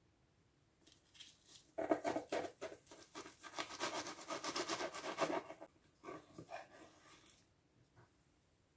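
A knife sawing through the flaky baked crust of an apple strudel, a quick run of crisp crackling strokes that is loudest in the middle and tapers off near the end.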